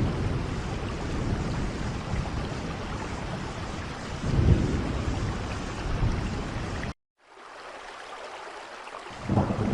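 Steady rain with swells of low rumble. About seven seconds in the sound cuts out abruptly, then comes back quieter without the rumble, which returns near the end.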